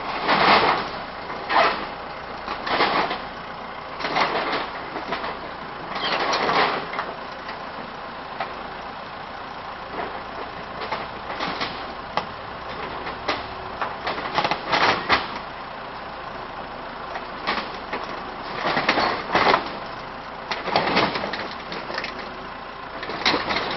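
Caterpillar backhoe tearing apart a mobile home, its engine running steadily underneath. Irregular bursts of crunching, cracking and scraping of sheet metal, wood and wall panels come every second or two, with a couple of quieter stretches in between.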